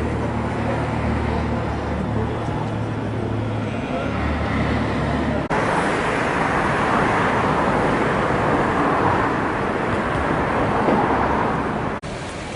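Steady low drone of a motor vehicle's engine. About five and a half seconds in it cuts abruptly to a louder, even rush of traffic noise.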